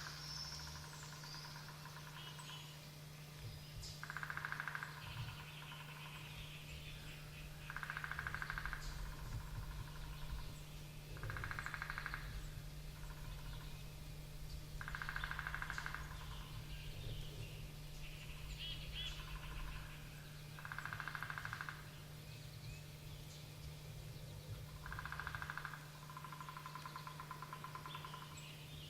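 Wild turkey gobbling over and over, each gobble a rattling call of about a second, about every four seconds. Smaller birds chirp between the gobbles over a steady low hum.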